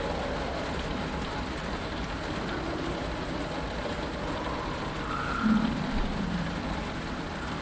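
Steady rain pattering on a starfighter's cockpit canopy, with a low rumble underneath. A brief louder sound rises out of it about five and a half seconds in.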